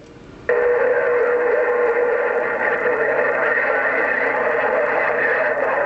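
CB radio receiver picking up a strong, garbled transmission. It cuts in abruptly about half a second in, and from then on is a steady tone with a dense jumble of distorted, overlapping signals.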